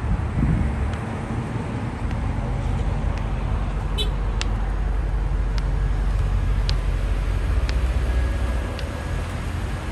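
A car running, with a steady low rumble of engine and road noise. A few faint ticks come about once a second in the second half.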